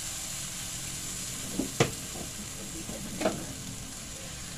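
Ground spice paste, chillies and chopped tomatoes sizzling in hot oil in a wok while being sautéed. A spatula knocks sharply against the pan twice, about two seconds in and again a second and a half later.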